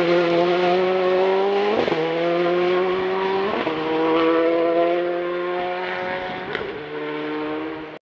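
Mitsubishi Mirage R5 prototype rally car's engine running under throttle on a gravel stage, its pitch climbing slowly and shifting sharply three times at gear changes. It fades as the car drives away, with one sharp click about six and a half seconds in.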